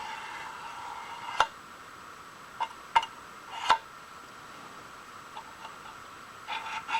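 Steel scribe scratching along the edge of a metal plate, a drawn stroke in the first second and a half that ends in a sharp click, followed by scattered sharp clicks and a short burst of scratching near the end.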